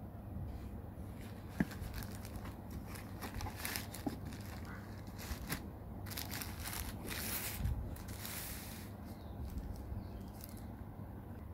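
Hands handling and unfolding a folding metal desktop stand on a plastic packing sheet: rustling and crinkling of the plastic, with clicks from the stand's hinged parts, the sharpest about one and a half seconds in.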